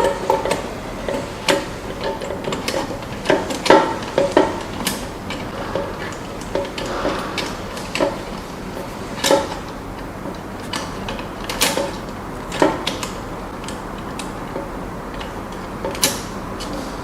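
Mortise lock case and latch parts being handled and fitted together: irregular small metal-and-plastic clicks and knocks, a few sharper ones scattered through.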